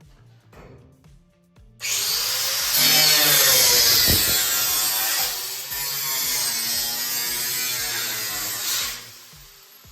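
Handheld power tool running hard against sheet steel for about seven seconds, starting about two seconds in and stopping near the end, its pitch sagging and recovering as it bites, typical of trimming a steel body panel. Background music underneath.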